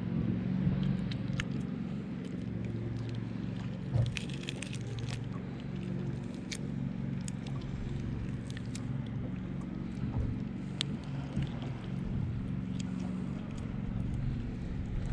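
A low, steady engine hum, with small clicks and handling sounds scattered over it from small chub mackerel being gutted by hand. There is a single louder knock about four seconds in.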